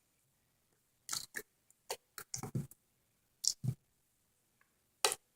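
Crunchy slime with beads being squeezed and poked, giving irregular sharp clicks and crackles in short clusters with quiet gaps between them.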